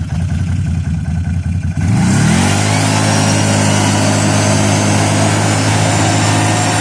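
Off-road vehicle engine running low, then revving up quickly about two seconds in and holding a steady higher speed as the vehicle pulls away, with wind and tyre noise rising along with it.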